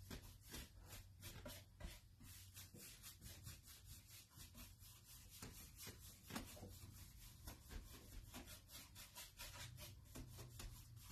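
Faint swishing of a paintbrush blending chalk-style paint on a bookshelf, in quick, repeated back-and-forth strokes.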